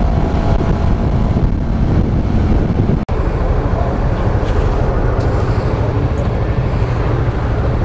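Honda GTR 150's single-cylinder engine running while riding, a steady engine and road noise with wind on the microphone. The sound cuts out for an instant about three seconds in.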